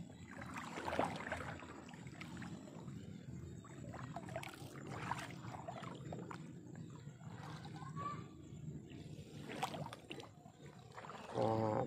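Water sloshing and splashing as someone moves through shallow flood water, with scattered small knocks.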